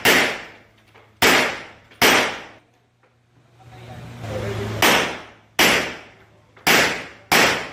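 Seven pistol shots from a Rock Island Armory Tac Ultra FS HC, each echoing in the indoor range: three fairly quick shots, a pause of about two and a half seconds as the shooter moves, then four more.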